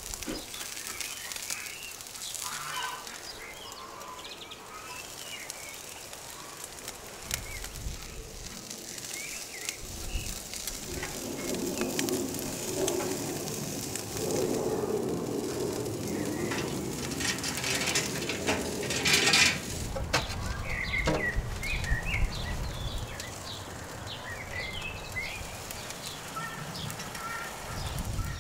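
Small songbirds chirping again and again in the background of an outdoor yard. In the middle there is a stretch of rustling, crackling handling noise, with a brief louder hiss about two-thirds of the way through.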